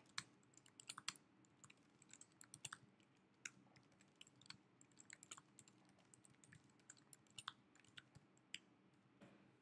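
Faint typing on a computer keyboard: quick, irregular keystrokes clicking in uneven runs.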